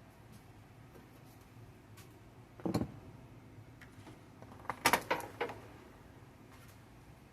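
Objects being handled and set down: one knock about a third of the way in, then a quick run of sharper knocks and clicks just past the middle.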